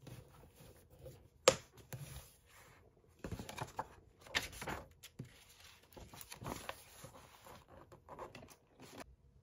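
A snap-button clasp on a faux-leather planner cover pops open with one sharp click, followed by paper pages being turned and smoothed down in a series of rustles.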